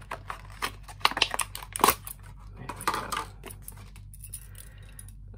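Clear plastic blister packaging crackling and snapping as a brass padlock and its keys are pulled out of it by hand, in a quick run of clicks and crackles that is loudest about one to two seconds in.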